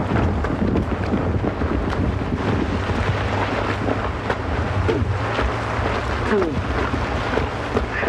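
Steady heavy downpour of rain over a constant low rumble.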